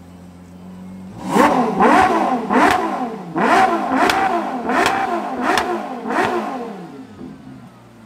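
Ferrari 812 GTS's naturally aspirated V12 idling, then, about a second in, blipped hard about eight times in quick succession, each rev rising and falling in pitch, before dropping back to idle near the end.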